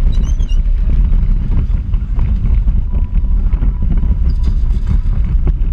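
Wind buffeting the microphone over the rumble and rattle of a small electric race kart driving on asphalt, recorded from a camera mounted on the kart. A few short high chirps come right at the start.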